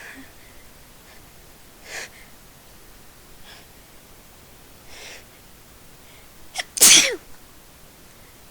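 A person sneezing: a few faint breaths, then near the end a quick catch followed by one loud sneeze whose voiced part drops in pitch.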